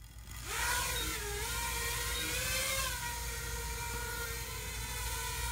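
Small toy quadcopter's electric motors and propellers spinning up into a high whine that rises in the first second, then holds steady with a slight wavering in pitch as the drone lifts off and hovers low.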